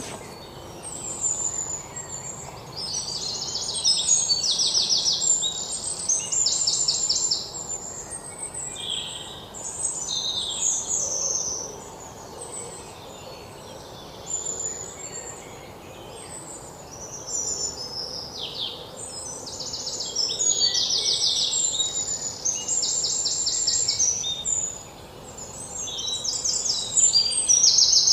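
Songbirds singing: repeated high, fast trilled phrases in bouts with short pauses, over a faint steady background hiss.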